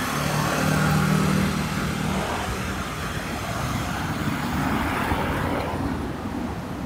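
Road traffic on a city street: a vehicle's engine hums for about the first two seconds, over a steady wash of passing tyre and traffic noise.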